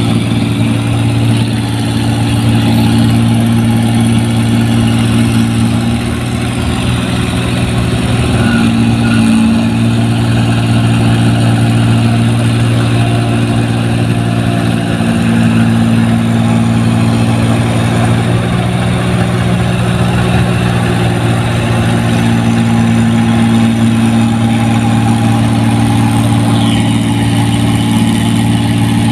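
New Holland 1545 combine harvester cutting rice, its diesel engine running loud and steady under the busy noise of the machine's workings.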